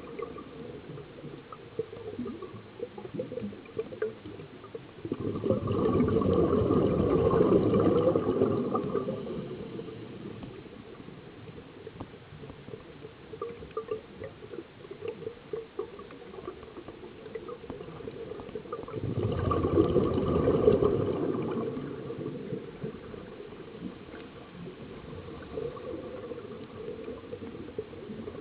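A scuba diver's exhaled bubbles gurgling out of the regulator, recorded underwater: two long exhalations, one about five seconds in and one about nineteen seconds in, each lasting three to four seconds. A faint crackle runs underneath in between.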